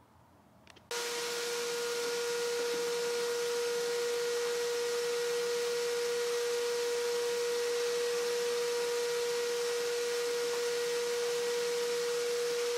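A desktop PC's cooling fans start up suddenly about a second in as the machine is switched on, then run steadily: an even rushing hiss with a steady humming tone and its overtones.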